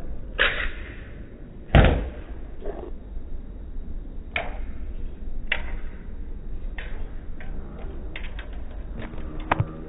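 A bare circuit-board quadcopter frame striking a concrete wall and pavement: a sharp hit, then the loudest crack about two seconds in, followed by scattered lighter knocks and clicks, over steady wind noise on the microphone.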